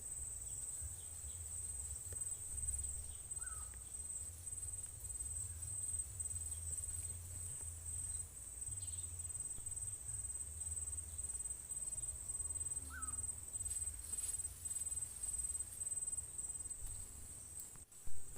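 Crickets trilling in a steady, high-pitched chorus over a low rumble, with a short bird chirp twice. A single sharp knock near the end.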